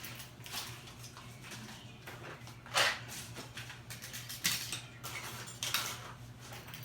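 Scattered metallic clinks and knocks of tools and parts being handled during hands-on car audio wiring work, the loudest about three seconds in, over a low steady hum.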